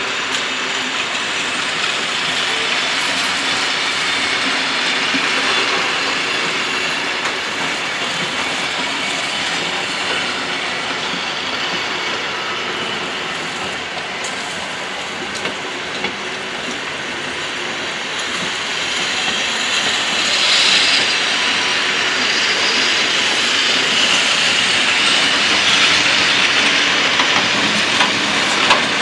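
Railway coaches and wagons of a passing museum train rolling by close up: steady rattle and clatter of the wheels on the rails, growing louder and harsher about two-thirds of the way through.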